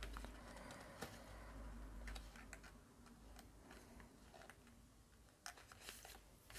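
Near silence, with faint scattered taps and rustles of paper and card being handled while a small paper tab is glued in place.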